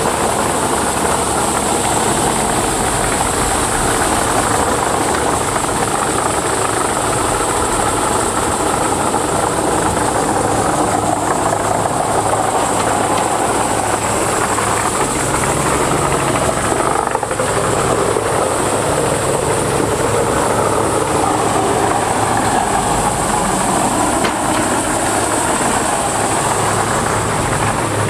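Morbark 2755 flail chipper running, a loud, steady mechanical din with a low engine hum under a hissing high band.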